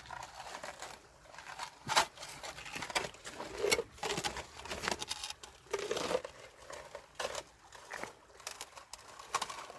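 Shovel digging in wet mud and stones: irregular scrapes and squelches with a sharp knock about two seconds in.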